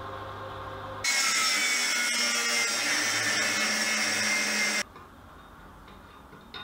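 Angle grinder grinding down a weld bead on a steel box. It starts suddenly about a second in, runs loud and steady for nearly four seconds, then cuts off.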